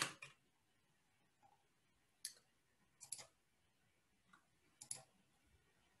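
Near silence broken by a handful of short, isolated clicks at a computer, one at the start and the rest scattered a second or so apart from about two seconds in.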